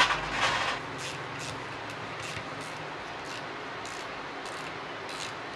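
Plastic pump parts of a pressure washer being handled and set down: a short clatter and rustle at the start, then faint, irregular light clicks over a steady background hum.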